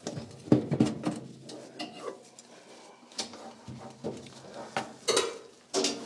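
A knife blade scraping and clicking against the metal rim of an all-metal washing machine's lid, working grime out of the grooves. The scrapes and taps come irregularly, with the loudest pair near the end.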